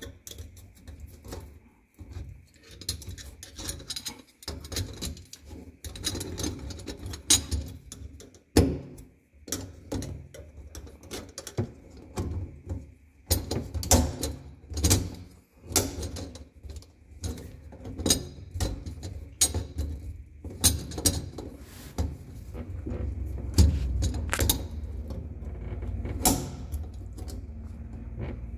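Irregular metal clicks and clinks as a garbage disposal's steel mounting ring and snap ring are worked by hand onto the sink flange, the snap ring being pushed into its groove so it holds the mount up.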